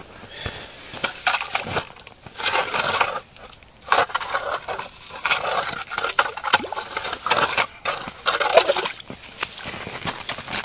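Crunching and scraping of ice and slush at an ice-fishing hole, as a hand ice auger's blades work in the hole and ice is broken away from its rim to widen it, with irregular crunches and sharp clicks.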